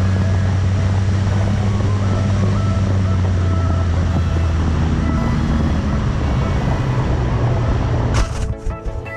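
Electric motor and propeller of a Blade Theory Type W FPV wing droning steadily over a rush of wind, heard from the onboard camera. About eight seconds in the wing hits the grass with a few sharp knocks as it lands, and the motor sound falls away.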